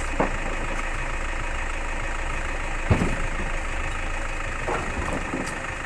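A vehicle engine idling steadily, with a few short knocks over it; the sharpest comes about three seconds in.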